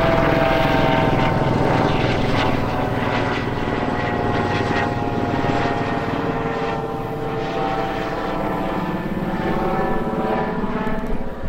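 Helicopter flying overhead: a steady drone of engine and rotor that drops slightly in pitch and fades a little as it moves away.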